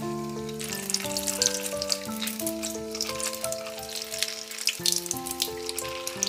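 Tap water splashing and spattering onto a plastic bag of frozen chicken wings in a stainless steel sink, over background music. The splashing starts about a second in.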